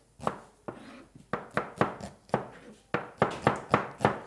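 Kitchen knife slicing an onion on a cutting board: quick runs of sharp knife strikes against the board, with a short pause about a second in.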